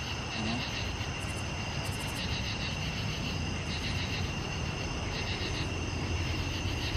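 A chorus of insects singing at the pond: a constant shrill note with a pulsing chirr above it, over a steady low rumble.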